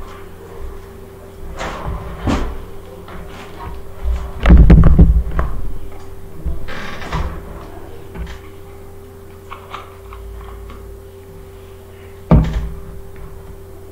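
A few scattered knocks and thumps: the loudest is a heavy low thump about four and a half seconds in, with a sharp knock near the end, over a steady low hum.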